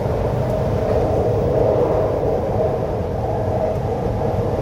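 Sydney Metro Metropolis train running between stations, heard from inside the carriage: a steady rumble with an even hum over it.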